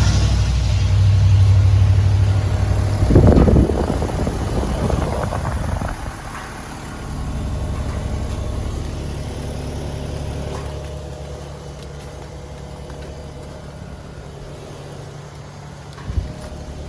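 Outdoor heat pump condenser unit running in heat mode: a steady low hum of compressor and fan. A louder noisy burst comes about three to six seconds in, and a short click near the end.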